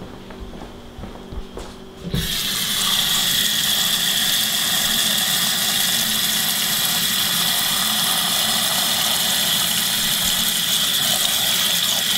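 A few faint knocks, then about two seconds in a kitchen faucet comes on and runs steadily into a stainless steel pot of cut asparagus, filling it with water.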